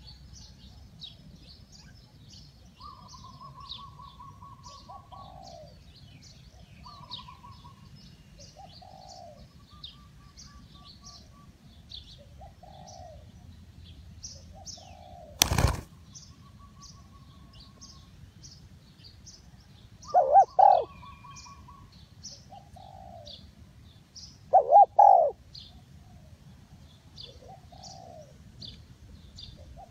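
Spotted dove cooing: a series of soft coos, with louder doubled coos about twenty and twenty-five seconds in, and short trilling notes between them. Small birds chirp steadily in the background, and there is one sharp knock about halfway through.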